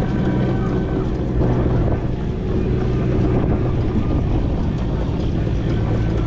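4-inch scale McLaren traction engine running steadily on the move, a continuous mechanical hum with wind noise on the microphone.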